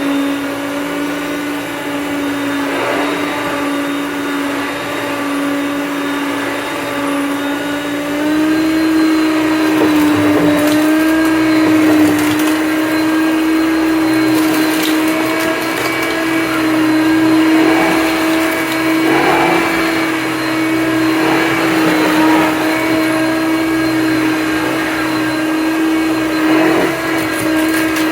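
Hoover Concept upright vacuum cleaner running, a steady motor hum whose pitch rises slightly about eight seconds in, with scattered crackles of debris being picked up.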